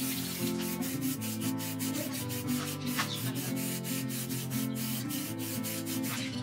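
Background music: a melody over a steady, quick, scratchy percussion beat.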